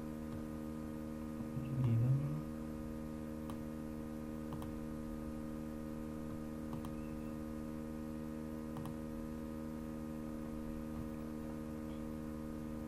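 Steady electrical hum from the recording setup, with a few faint computer-mouse clicks as fonts are selected. There is a brief low murmur about two seconds in.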